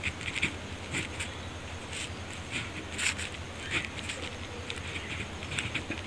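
Ballpoint pen scratching on notebook paper in short irregular strokes as words are written and lines drawn, over a steady low hum.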